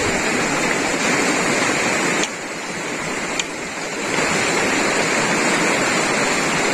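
Steady rushing of river water. It drops somewhat quieter for a couple of seconds about two seconds in, with two faint clicks.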